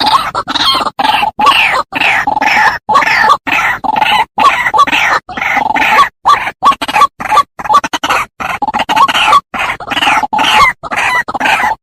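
White-breasted waterhen calling: a rapid run of short, repeated 'ruak-ruak' notes broken by brief pauses. This is the call used as a lure to draw the birds in.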